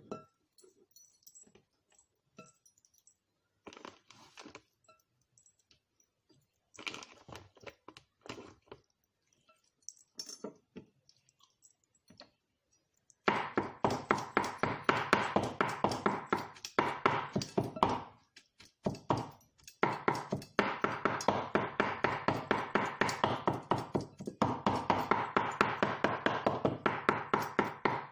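A large kitchen knife chopping raw meat fast on a wooden cutting board. A steady run of quick knocks starts about halfway in, with a few short breaks, after some scattered taps and handling sounds.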